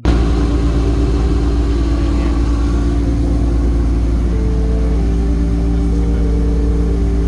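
Motor boat's engine running steadily at cruising speed, a loud, even low rumble with a droning hum.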